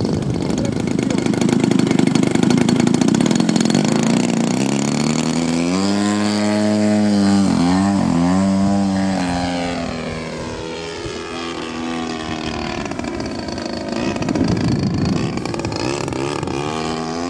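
Two-stroke petrol engine and propeller of a giant-scale radio-control model airplane in flight. Its pitch dips and rises as the plane passes, about six to nine seconds in, and the sound swells again near the end.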